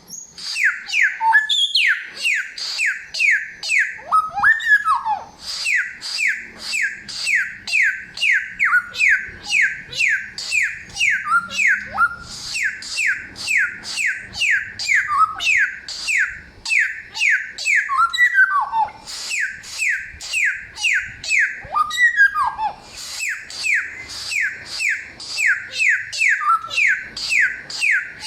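Samyong songbird singing: a long rapid series of clear, loud whistled notes, about three a second, each sweeping down in pitch. Now and then the series breaks for a lower swooping phrase before the run resumes.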